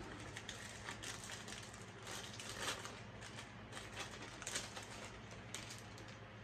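Irregular crackling and rustling of a wrapper being opened and peeled off a chocolate-coated bar, with a few sharper crinkles.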